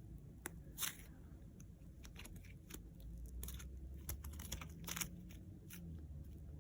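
Wet, sticky Wonder Dough being squeezed and pulled apart by hand: faint, irregular little crackles and clicks.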